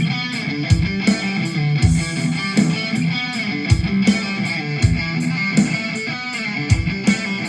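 Background music with guitar over a steady beat of regular high ticks and low drum thumps.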